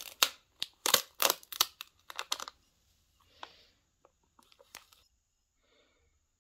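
Clear plastic transfer tape crackling and crinkling as it is peeled off a vinyl decal on a terracotta pot. A quick run of sharp crackles in the first two and a half seconds, then a few softer ones, fading out about five seconds in.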